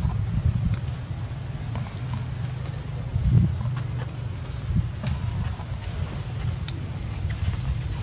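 Insects singing in one steady, unbroken high-pitched drone, over a low fluctuating rumble and a few faint ticks.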